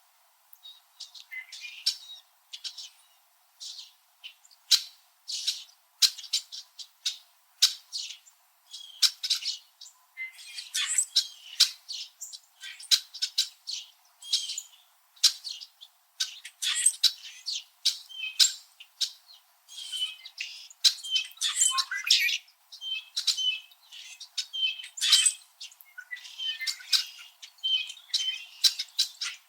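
A flock of red-winged blackbirds calling and chirping at each other: many overlapping short, sharp chirps and harsh squawks, close together and tumbling over one another.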